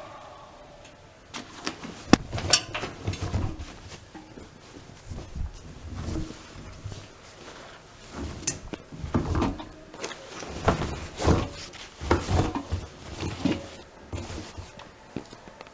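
Irregular knocks, clicks and thumps from a Privileg Dynamic 7420 washing machine being handled, as parts of the machine are opened, shut or set.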